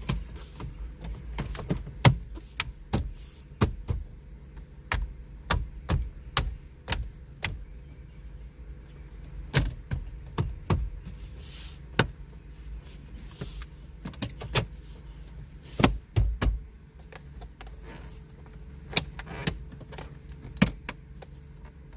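Irregular plastic clicks and knocks of a 2017 Hyundai Elantra's radio trim panel being lined up on its clips and tapped into the dash, a few sharper knocks standing out.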